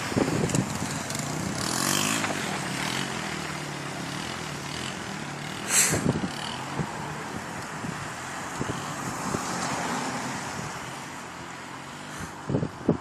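Small E-ton automatic four-stroke ATV engine revving up and down and running on the road, with a car driving past later. A sudden loud rush about six seconds in and a few sharp knocks near the end.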